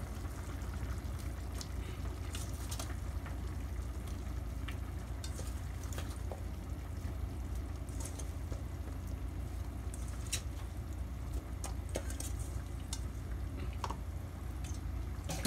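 Pot of stew simmering on a gas stove with a steady low rumble, and scattered light taps and clicks as broccoli florets are dropped into the metal pot.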